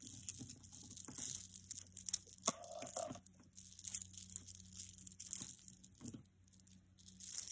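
Beads of a cha-cha style necklace and tangled metal chains clinking and rustling as hands pull them apart, in short irregular clicks, with a pause a little after six seconds in. The chains keep catching in the necklace's bead clusters.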